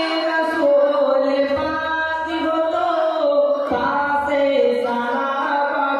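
A man singing a Bengali Islamic devotional song (gojol) into a microphone, in long held notes that slide from pitch to pitch.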